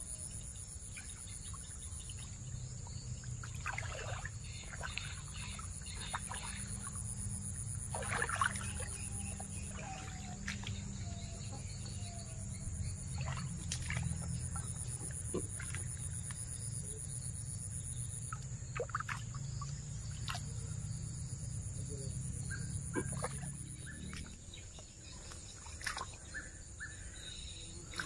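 Rubber boots sloshing and splashing now and then through shallow muddy floodwater, over a steady high drone of insects and a low steady rumble that stops near the end.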